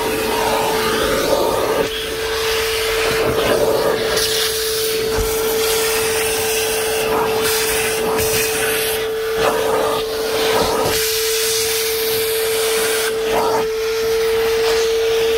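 DeWalt 9-gallon, 5 hp wet/dry shop vacuum running with a steady whine, fitted with its crevice tool. The rush of air at the nozzle rises and falls as it works over the surfaces.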